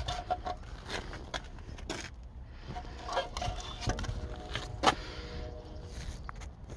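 Scattered clicks and knocks of hard plastic and hand handling as a removable cup holder insert is taken out of a car's centre console, over a low rumble.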